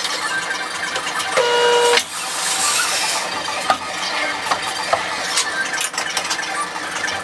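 Tire-mounting work noise: clanks and clicks, a short whistle-like tone about a second and a half in, then a burst of hiss.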